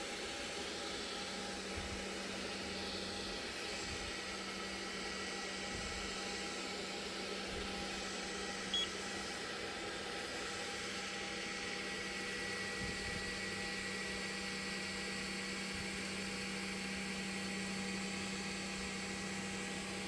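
3D printer running as it lays down the first layer of flexible TPU filament: a steady mechanical hum with several steady tones, a low one coming in shortly after the start. A short high beep sounds once about nine seconds in.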